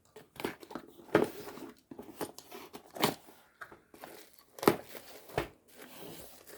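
Parcel packaging being cut and torn open with a knife: crinkling and tearing, with scattered sharp clicks and knocks.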